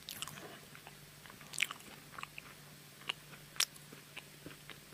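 Quiet eating sounds close to a microphone: a person biting and chewing food, heard as scattered short crunchy clicks at irregular intervals.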